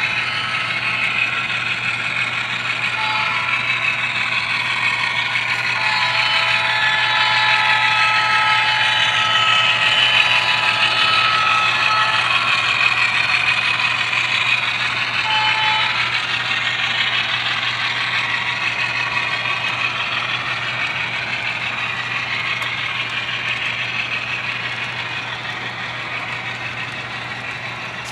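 Model train running past on the layout: a steady mechanical running sound of the locomotives and cars on the track, swelling to its loudest about a third of the way in and fading toward the end as the train goes by.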